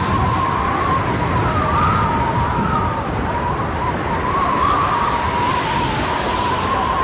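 Storm-force typhoon wind, a loud steady rushing and rumbling with a high, wavering howl that rises and falls a little throughout.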